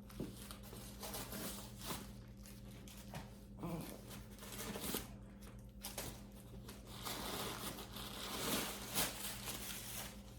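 Packing stuffing inside a new handbag crinkling and rustling as it is handled and pulled out, with a few small knocks. The rustling grows busier in the second half.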